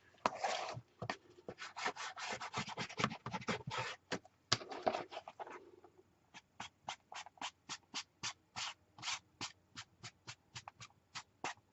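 Short rubbing strokes of paint being worked along the edges of a paper journal cover, many in quick succession, thinning out to about three strokes a second and getting quieter after the first half.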